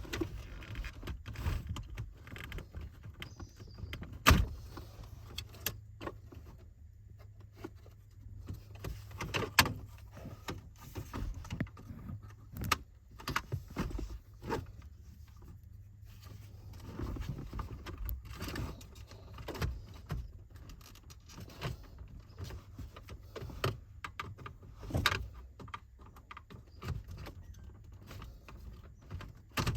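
Hands working on a car dashboard: irregular plastic clicks, knocks and rattles as the dash trim and AC control panel are pulled and pried loose.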